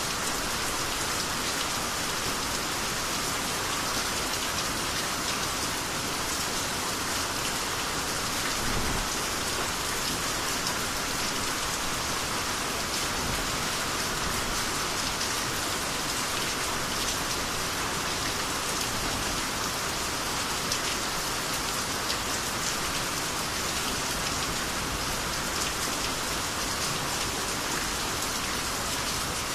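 Steady rain falling on surfaces: a dense, even patter of drops that holds constant throughout.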